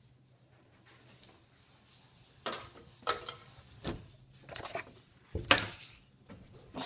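A quiet room for about two and a half seconds, then a run of sharp rustles and knocks, about six in all, as dresses are carried up and handled close to the microphone.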